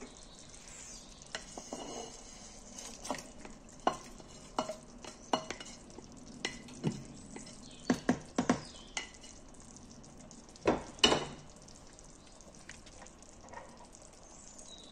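A pot of fumbwa stew bubbling on the boil, with a spoon knocking and scraping against the metal pot as fish pieces are stirred in. The sharp knocks come irregularly, and the loudest pair falls about two-thirds of the way through.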